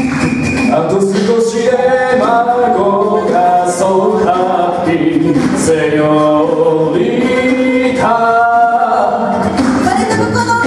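A cappella vocal group singing a song in several-part harmony, with no instruments.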